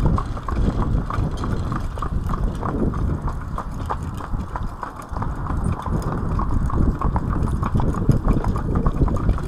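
Hooves of a pair of harnessed driving horses clip-clopping on a tarmac road, the two horses' beats falling irregularly against each other, over a continuous low rumble.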